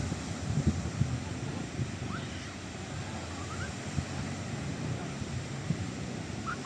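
Surf washing onto a sandy beach, a steady rushing noise, with wind buffeting the microphone in low gusty thumps. A few faint, short rising chirp-like sounds come through about two seconds in and again near the end.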